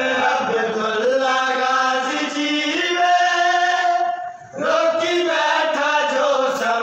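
Male voices chanting a noha, a Shia mourning lament, in long held, sliding notes, with a brief break about four and a half seconds in before the chant resumes.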